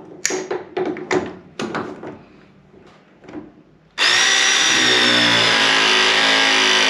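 A few handling clicks and knocks, then about four seconds in a Ridgid ProPress 241 battery press tool starts suddenly and runs loud and steady with a high whine, its pitch sagging slightly as the jaw crimps a copper press fitting.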